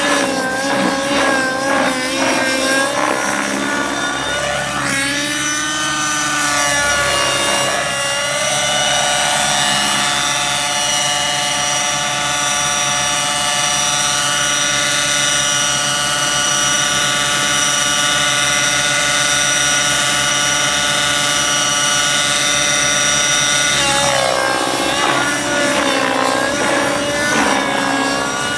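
Align T-Rex 600 Nitro RC helicopter's two-stroke glow engine and rotor running in flight. The pitch swings up and down through the first eight seconds and again in the last few, and holds steady in between while the helicopter hovers low.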